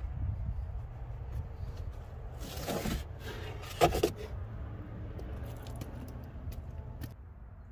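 A carpeted trunk floor panel being lifted and pulled out of a car's trunk: scraping and rustling as the board drags against the trunk lining, with a louder knock about four seconds in and a small click near the end.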